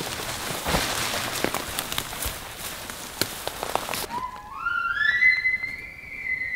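Rustling and crackling for about four seconds. Then an elk bugle: a whistle that climbs in steps to a high, held note near the end.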